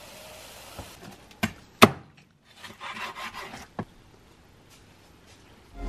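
Knife chopping crispy-skinned fried pork belly (lechon kawali) on a wooden cutting board: a few sharp knocks and cracks, with a rasping crunch of the crackling skin between them.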